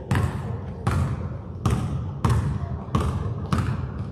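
Basketball being dribbled on a hard gym floor: six bounces, about one every 0.7 seconds, each ringing on in the big hall.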